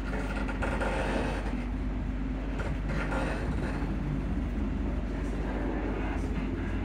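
Interior of a Class 334 electric multiple unit on the move: a steady low rumble from the running gear, with short knocks and rattles from the suspension as the carriage rides the track.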